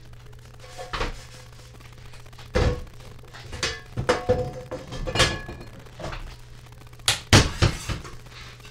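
About ten irregular knocks and clunks of household objects being handled and set down, some leaving a brief ring. The loudest pair comes near the end.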